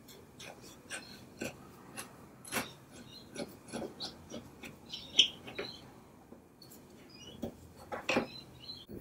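A long, thin metal tool scraping and picking inside a joint of a wooden chair arm: irregular small scratches and ticks, with one sharper click about five seconds in.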